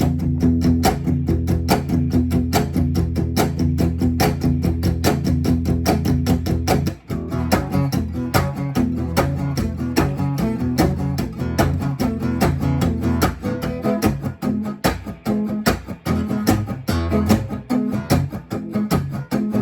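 Rhythm guitar strumming an early rock'n'roll comping pattern in steady eighth notes, played twice with a short break about seven seconds in, contrasting an unaccented pattern with one that accents the backbeat on 2 and 4.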